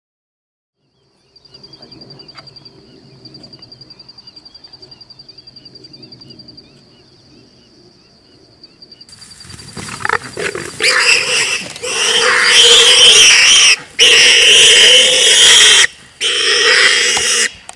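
Warthog squealing loudly in distress as lions catch it, in long harsh bouts that start about halfway through. Before the squealing there is only a faint, steady high trill.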